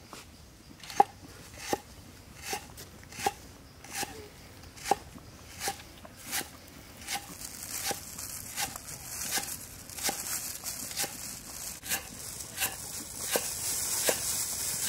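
Cleaver chopping lemongrass into thin slices on a round wooden chopping board: a steady run of sharp knocks, about one and a half a second, starting about a second in.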